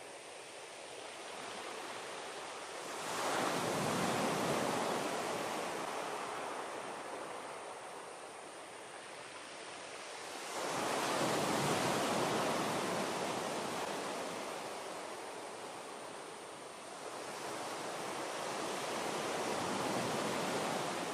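A rushing noise that surges up suddenly and dies away slowly, three times.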